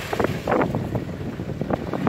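Toyota Hilux Surf's engine running as the SUV wades through deep slushy meltwater, with water sloshing and splashing in short irregular bursts around it. Wind buffets the microphone.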